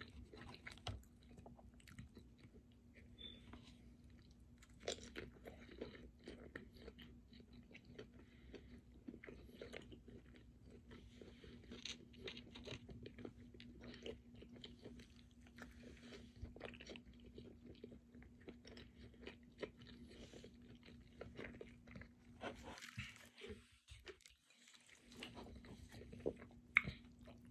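Faint close-up chewing and biting: soft crunches and small wet mouth clicks of someone eating a smash burger wrapped in a soft tortilla.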